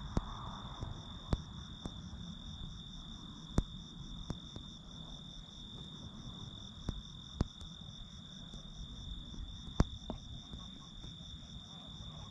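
Crickets singing: a steady high trill with a faster pulsing chirp above it. A few sharp clicks are scattered through.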